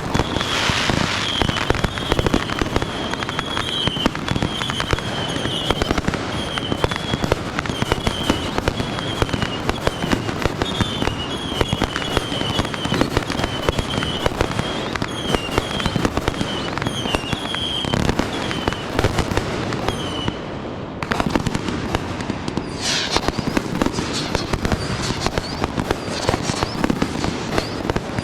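Fireworks display going off in a dense, continuous barrage of bangs and crackle. A high warbling whistle runs through most of it and stops about twenty seconds in, and a single falling whistle follows a couple of seconds later.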